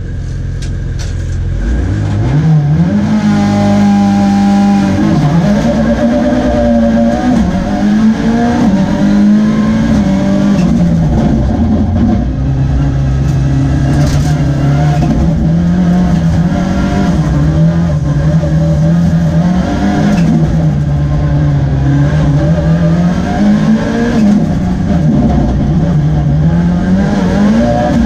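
Mitsubishi Lancer Evolution IX rallysprint car's turbocharged four-cylinder engine, heard from inside the cabin. About two seconds in it launches hard from the start line, then revs hard through the gears, its pitch climbing and dropping again and again with each shift and lift.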